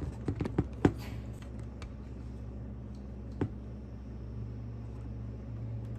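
Indoor room tone with a steady low hum. A few sharp clicks and taps come in the first second and one more about three and a half seconds in, like a handheld phone being moved about.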